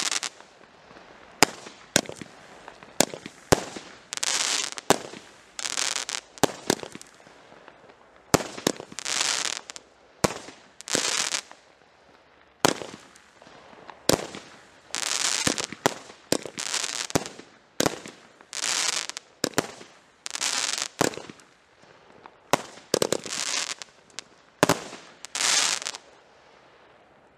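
Weco Full House fireworks cake firing shot after shot, about thirty in all, at roughly one to two a second. Each shot is a sharp bang, most followed by a second or so of noise from the burst. The firing stops near the end.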